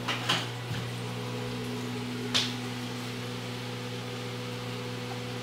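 Steady electrical hum with a fan-like hiss, typical of running cooling fans and lighting gear. Two brief scuffs cut in, one just after the start and a louder one about two and a half seconds in.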